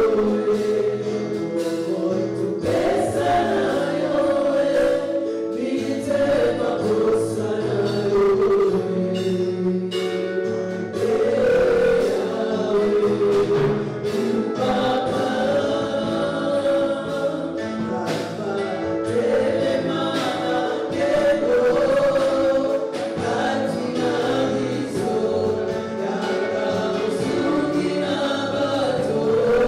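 Gospel worship song: a choir of voices singing together over a band with steady percussion hits.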